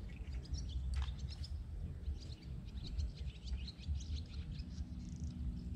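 Small songbirds chirping and twittering, many short high calls in quick succession, over a constant low rumble.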